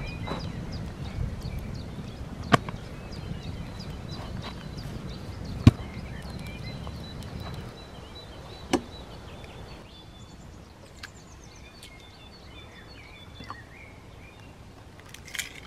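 A metal knife and spatula scrape and knock on a stone cooking slab over a campfire as a herb-filled flatbread is cut and lifted, with three sharp knocks spread through the first nine seconds. Small birds chirp throughout.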